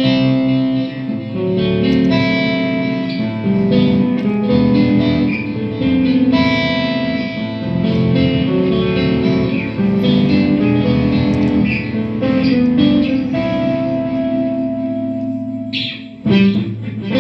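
Electric guitar played through a Marshall combo amp with a crunchy overdriven tone: a run of sustained single notes and short phrases, with a short pause near the end before loud picked notes start again.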